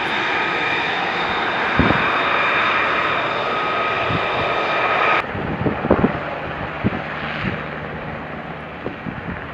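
Fighter jet engine running: a loud rush with a steady high whine. About five seconds in it cuts abruptly to a quieter rumble with scattered knocks.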